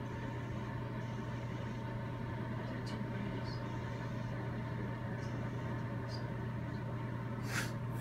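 A steady low mechanical hum with a fainter high whine above it, and a few faint ticks.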